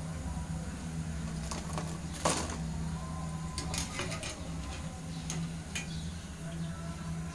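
A few light clicks and knocks of kitchen utensils being handled, the loudest about two seconds in, over a steady low hum.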